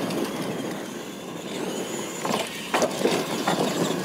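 Radio-controlled monster trucks racing across a dirt track, a steady motor and tyre noise on loose gravel. A few sharp knocks and clatters come between about two and three and a half seconds in.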